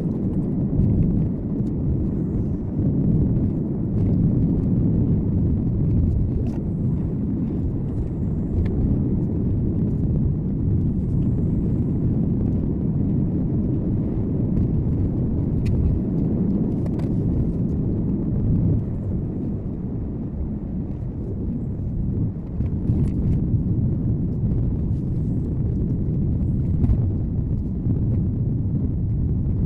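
Car driving along a road, a steady low rumble of tyres and engine picked up by a dashcam inside the cabin, with a few faint ticks.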